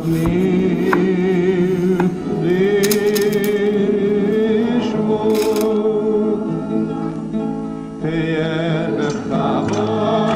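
Background music: a singer holding long notes with vibrato over instrumental accompaniment.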